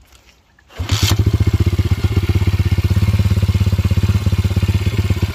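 Apollo RFZ 150 dirt bike's single-cylinder four-stroke engine cuts in suddenly about a second in, then idles steadily with a fast, even putter.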